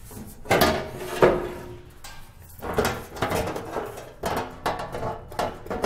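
Sheet-metal cover panels on an electron microscope's ion-pump housing being lifted off and set aside: a string of metallic clunks and rattles with a brief ring. The loudest knocks come about half a second and a second in.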